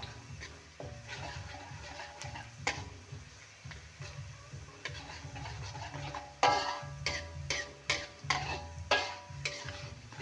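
A metal spatula scrapes and knocks against a thin metal wok while stir-frying garlic and shallots in hot oil, with a sizzle beneath. The knocks come a few at a time at first, then louder and quicker in the second half, each leaving a short metallic ring.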